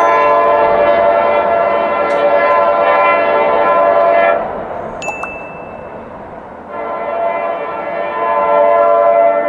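CSX freight locomotive's air horn blowing for a grade crossing ahead: one long blast that stops about four seconds in, then after a pause of about two seconds a second long blast begins.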